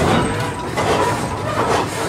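Fairbanks Morse 15-25 tractor's big slow-revving single-cylinder engine running as the tractor drives, with slow, even exhaust beats a little more than one a second.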